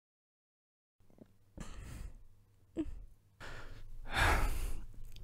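Tearful sighs and shaky breaths that begin about a second and a half in, with a brief catch of the voice near the middle and a louder sigh near the end.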